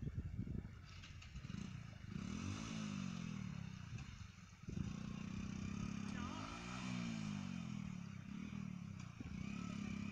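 Motorcycle engine revving up and falling back twice as the bike climbs a steep dirt slope, with a brief drop in sound about four and a half seconds in before it picks up again.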